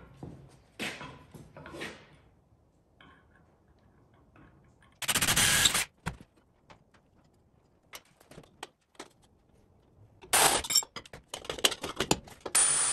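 A few sharp metal clanks with short ringing tails, then a cordless drill runs for about a second, cutting into steel. Near the end comes a run of rustling and scraping as cloth rubs over the microphone.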